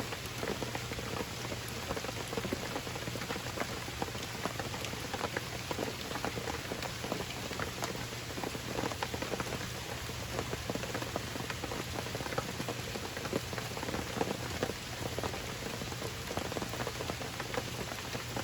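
Steady rain falling, with many individual drops hitting close by as quick, irregular ticks over an even hiss.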